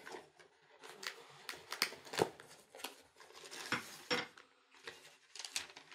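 A taped cardboard box being opened by hand: a blade scraping and cutting through the tape and cardboard, then a sheet of paper rustling as it is pulled out. It comes as short, scattered scrapes and rustles with small clicks.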